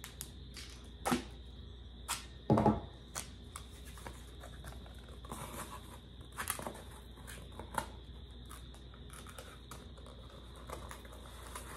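Gorilla tape being pulled off the roll in short rips and pressed onto bent cardboard, with scattered crinkles and one thump about two and a half seconds in.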